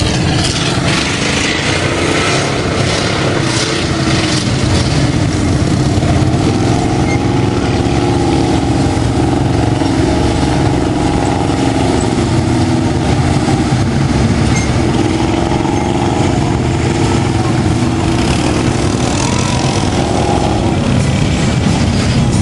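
Mud-bogging pickup truck's engine revving hard under load as it churns through a mud pit, its pitch rising and falling.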